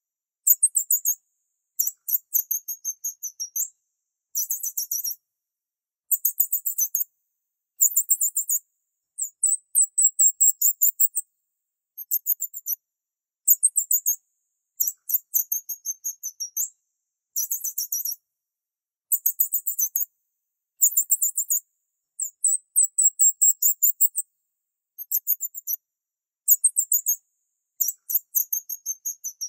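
Very high-pitched chirping in rapid trills of about ten notes a second. It comes in bursts of half a second to two seconds, separated by short gaps.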